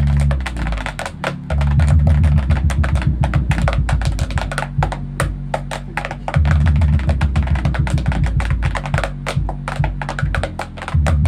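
Loud bass-heavy music with a drum beat played through a 32-inch speaker driven by a power amplifier. Long deep bass notes sit under rapid sharp hits, and the bass drops out briefly a few times.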